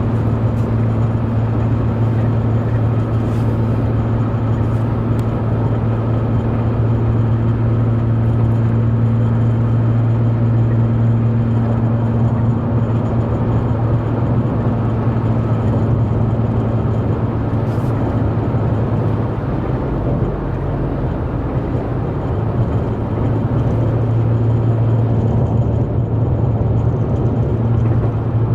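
Truck's steady low drone heard from inside the cab while driving: engine and road hum that eases off for a few seconds about two-thirds of the way through, then picks up again.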